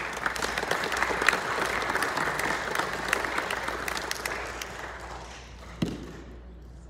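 Audience applauding, many hands clapping at once; the clapping fades out after about five seconds, and a single thump comes near the end.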